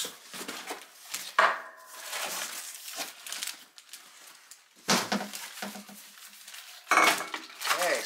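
Plastic wrapping rustling and cardboard packaging being handled as bicycle parts are pulled out of a shipping box, with a few sharp knocks and clatters among them.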